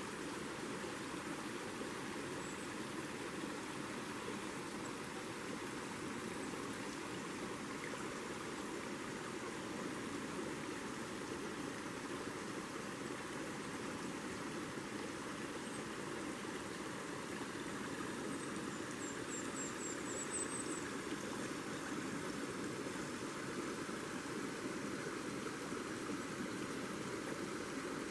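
Small creek running steadily, an even wash of flowing water.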